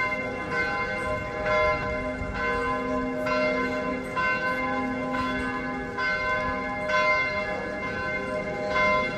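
Church bells pealing: several bells striking over and over in an uneven overlapping pattern, roughly two strikes a second, each left ringing.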